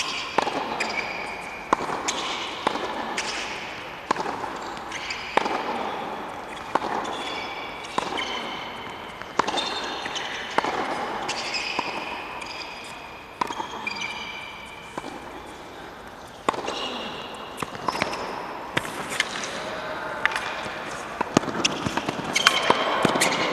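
A long tennis rally on a hard court: the ball cracks off the strings and bounces about every one and a half seconds, with sneakers squeaking on the court between the shots.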